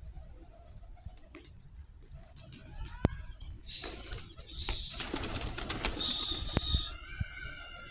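Domestic pigeons cooing softly, with a louder rustling noise from about halfway in that lasts some three seconds.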